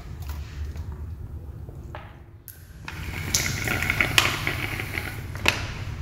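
Café room tone with a steady low hum; it drops away briefly about two and a half seconds in, then returns as a hiss of background noise with two light taps.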